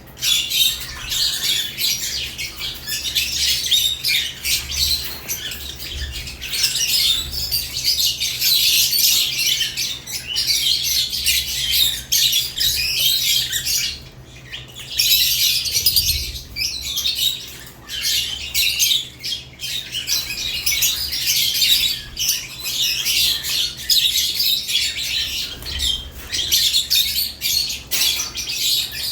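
Several caged lovebirds chirping in a dense, continuous high-pitched chatter, with a brief lull about halfway through.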